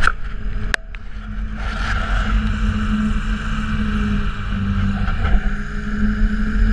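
1971 Thiokol snowcat's engine running steadily under way, a continuous low drone. Two sharp knocks come in the first second.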